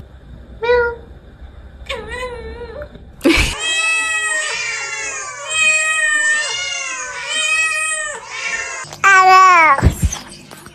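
A cat meowing over and over: two short meows, then a louder run of high, warbling meows a few seconds in, and a loud falling meow near the end that cuts off suddenly.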